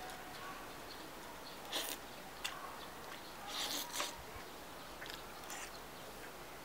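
Person slurping spicy mixed noodles (kimchi bibim-guksu) off chopsticks: a few short wet slurps, the longest and loudest about three and a half to four seconds in.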